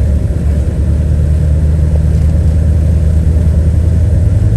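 2000 GMC Sierra 1500 pickup's engine and road noise heard inside the cab while driving, a steady low drone.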